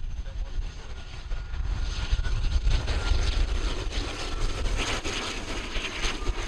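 ATR 42-600 twin-turboprop airliner passing close on the runway as it lands. The hiss and whine of its engines and propellers grow louder about two seconds in, over a steady rumble of wind on the microphone.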